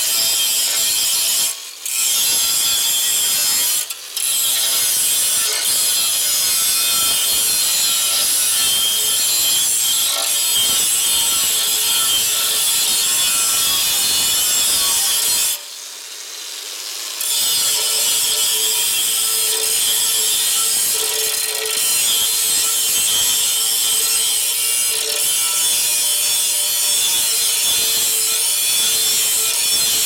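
Handheld electric angle grinder running at speed and grinding a metal motorcycle primary cover. It stops briefly twice early on, then stops for about two seconds halfway through, winding down, and starts again with a steady whine under the grinding. Its rough sound is something the user calls 'sound like crap, but it still works'.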